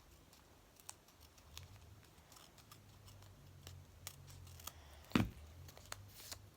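Scissors snipping paper in a series of small clicks, with a louder knock about five seconds in.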